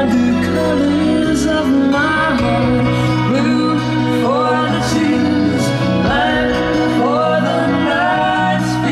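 Recorded music with singing and guitar, country in style, played in the room over Linn Sara Isobarik loudspeakers driven by a Tandberg 3002A preamplifier and a Marantz 250 stereo power amplifier.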